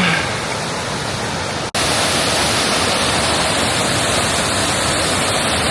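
Waterfall water rushing in a steady, loud hiss; about two seconds in it cuts off for an instant and comes back louder and brighter.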